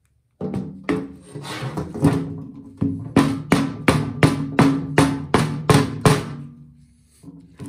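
Rubber mallet tapping the aluminium crankcase cover of a Honda EU2000i engine to break it loose and split the case: a few separate knocks, then an even run of about nine strikes, roughly three a second.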